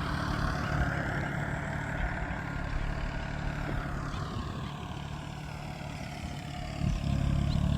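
A vehicle engine running steadily with a low hum, its higher whine slowly sliding in pitch; it eases off around the middle and picks up again near the end.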